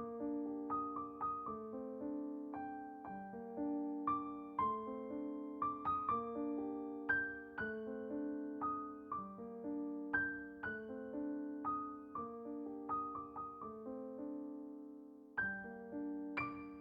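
Soft piano background music, a slow melody of single notes ringing and fading. The notes die away into a short lull near the end, then a new phrase begins.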